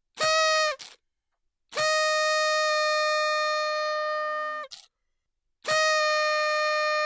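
Party horn blown three times: a short blast, a long steady blast of about three seconds ending in a brief sputter, and another long blast starting near the end. Each is a single steady buzzy tone.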